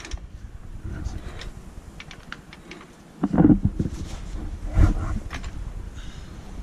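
Floor jack being worked under the car: a low scraping rumble with small clicks, and two louder grinding strokes about a second and a half apart past the middle.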